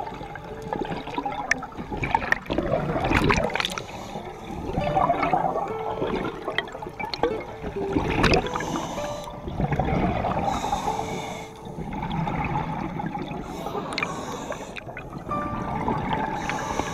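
Scuba breathing underwater: bursts of exhaled bubbles from a regulator gurgling past the camera, swelling and fading every two to three seconds.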